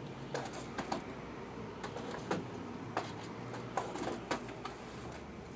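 Light clicks and taps of things being handled on a tabletop, scattered and irregular, over a steady low hum.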